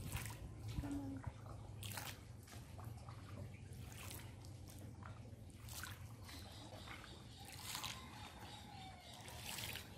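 Soft water splashes and drips, about every two seconds, over a low steady hum.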